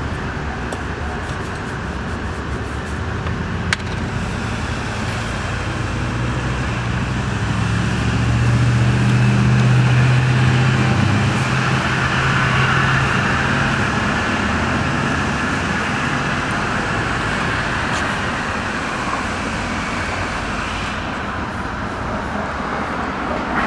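Steady road traffic noise, swelling as a vehicle passes a little before the middle and then fading back.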